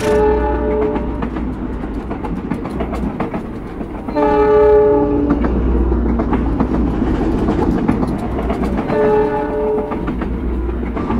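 Diesel locomotive train running along the track, wheels clicking over a steady low engine rumble. It sounds its horn three times: at the start, about four seconds in (the longest and loudest), and about nine seconds in.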